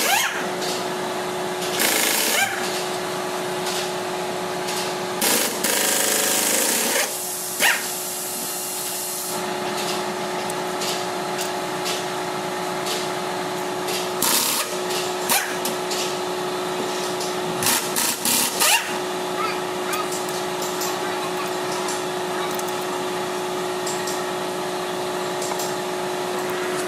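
Steady machine hum with one constant tone, over which come scattered clicks and knocks of hands handling engine bottom-end parts, and a brief hiss about five seconds in.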